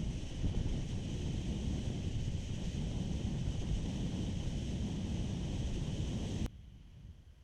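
Wind rumbling and buffeting on an action camera's microphone on a moving Kawasaki ER6f motorcycle, a steady rush of noise. About six and a half seconds in it cuts off abruptly to a much quieter hiss.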